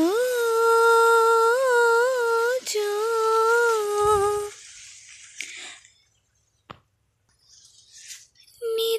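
A woman humming a slow melody without words, two long held phrases with small turns in pitch, stopping about halfway. Then near quiet with a single click, and the humming starts again just at the end.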